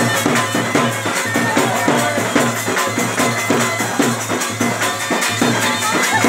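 Bhaderwahi folk dance music: a reedy wind melody over a steady drone, with a quick, even drumbeat.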